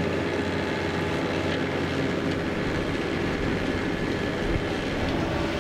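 Diesel utility tractor engine running steadily while it pulls a rear-mounted rotary tiller through the dirt of the pulling track.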